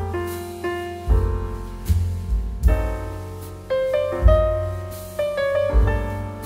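Background piano music: sustained chords with deep bass notes, a new note or chord struck about once a second.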